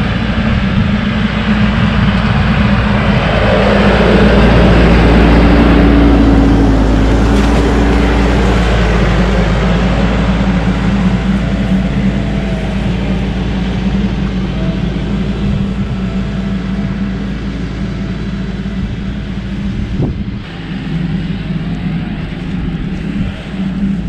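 Diesel engine of a 55 hp TYM 574 compact tractor running steadily, loudest around five seconds in.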